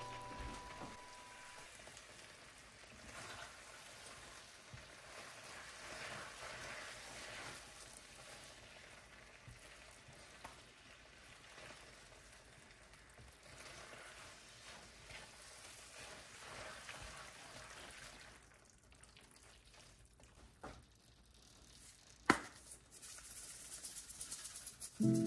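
Faint wet stirring and soft sizzling as spaghetti is tossed with metal tongs in a creamy mushroom sauce in a frying pan, with one sharp click near the end.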